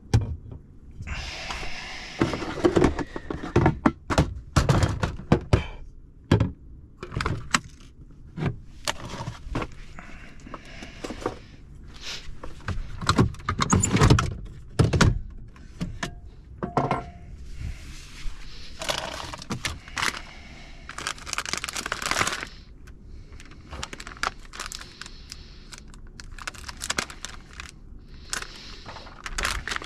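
Cooking gear and small items being handled close by: an irregular string of knocks, clinks and thunks, with a few short stretches of rustling.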